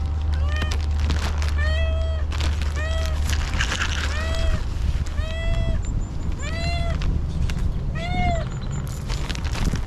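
A hungry stray cat meowing over and over, about seven arched meows roughly a second apart, each rising then falling in pitch: begging for food.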